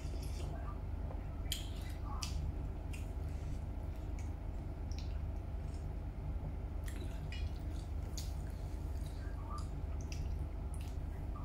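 Mouth sounds of eating meatball soup: a sip of broth from a spoon, then wet chewing and lip smacks heard as scattered short clicks, over a steady low hum.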